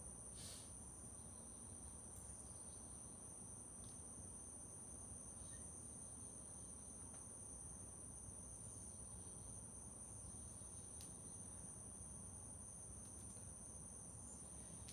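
Faint, steady high-pitched insect trill at two pitches over a low background hum, with a few faint clicks.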